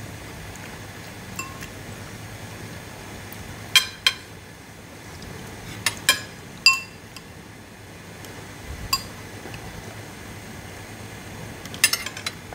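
Chopsticks and a spoon clinking against ceramic bowls and the hotpot during a meal: scattered sharp clinks that ring briefly. They start about four seconds in and end with a quick cluster of several near the end.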